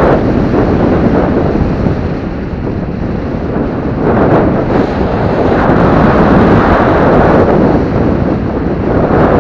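Airflow of a paraglider in flight buffeting the camera microphone: a loud, rushing wind noise that dips about two to three seconds in and swells again.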